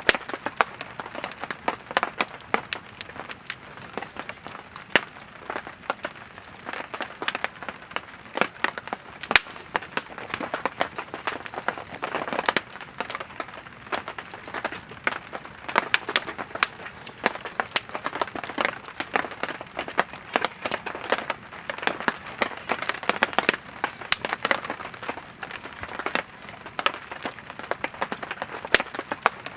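Firewood burning in a campfire, crackling and popping with irregular sharp snaps over a soft hiss of flame. A few louder pops stand out, one about nine seconds in and another near thirteen seconds.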